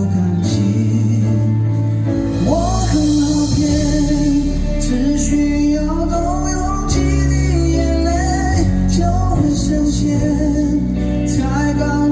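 Live pop-rock band music with singing: a melody line gliding over steady bass and drums.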